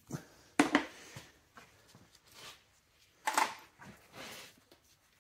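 Handling of tools and metal parts on a bare engine block while the crank sensor is taken off: a few short metallic clinks and knocks, the loudest about half a second in and again after about three seconds, with soft rustling between.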